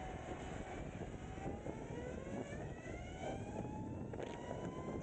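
Energica EsseEsse9 electric motorcycle's motor whining, the whine rising steadily in pitch from about a second in as the bike speeds up, over a haze of wind and road noise.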